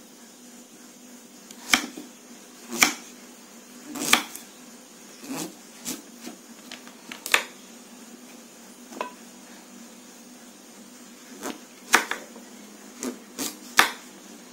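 Kitchen knife slicing peeled sweet potato into rounds on a wooden cutting board: about fifteen sharp knocks at uneven intervals as the blade cuts through and strikes the board.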